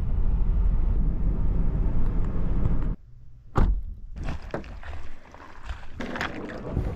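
Wind rumbling on the microphone for about three seconds, stopping abruptly. Then comes a sharp knock, followed by a run of splashes from a kayak paddle dipping into the water.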